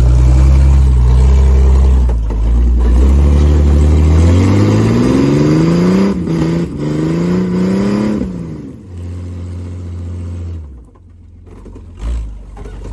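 Off-road rig's engine running hard at low revs, then revving up with a steadily rising pitch for about four seconds, dipping briefly twice, before dropping back to a lower, quieter run. A short low thump comes near the end.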